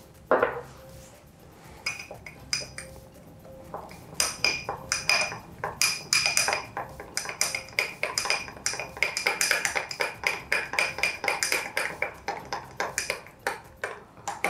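A thin metal spoon stirring hojicha powder into hot water in a small glass jug, clinking rapidly against the glass with a ringing tone. The clinks are sparse from about two seconds in, then fast and steady from about four seconds in. A single sharp knock comes near the start.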